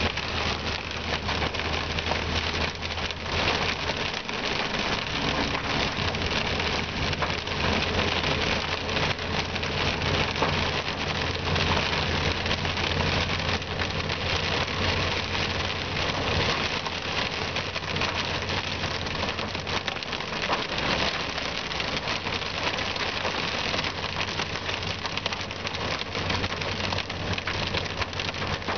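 Heavy rain hitting a car's windshield and roof, heard from inside the cabin, a dense steady hiss. The vehicle's engine hums low underneath while driving.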